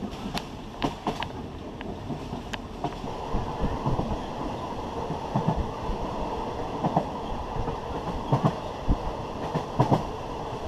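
Passenger train running along the line: the steady rumble of the carriage, with irregular clacks and knocks of the wheels over the rail joints.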